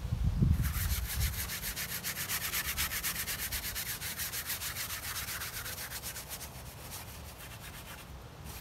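Wide bristle brush scrubbing varnish onto an oil-painted canvas in quick back-and-forth strokes, about five a second, a rhythmic scratchy rubbing that fades toward the end. A few low thumps sound just before the brushing starts.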